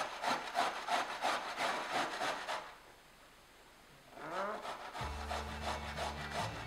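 Carrot scraped down a metal box grater in quick even strokes, about four a second, stopping about two and a half seconds in. After a short pause, background music comes in at about five seconds.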